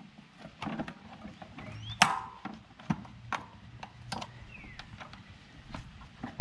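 A plastic tire lever and the rubber bead of a mountain bike tire being worked onto a Mavic CrossMax XL Pro rim over a CushCore insert: irregular sharp clicks and knocks with a few short rubber squeaks. The loudest snap comes about two seconds in.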